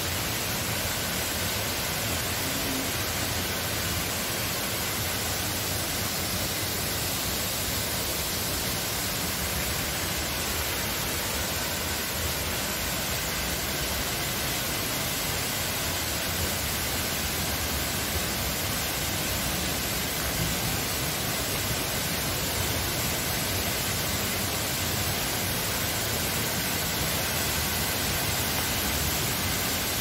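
A tall waterfall rushing: a steady, even wash of noise with no breaks.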